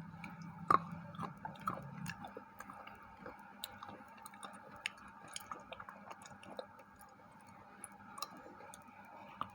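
Close-up chewing of a white KitKat wafer bar: soft crunching and small mouth clicks, with one sharper crack about 0.7 s in.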